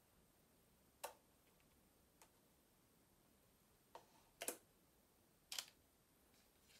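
A few sparse, sharp clicks from a Canon EOS 80D DSLR body as its buttons and controls are pressed in the hands, against near silence. The clicks are about a second apart or more, and the loudest comes about four and a half seconds in.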